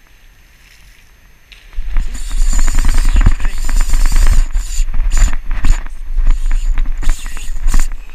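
Wind buffeting the microphone with a heavy rumble, and a spinning reel's rapid clicking over it while a hooked fish is fought. Both come in suddenly about two seconds in, after a quiet start.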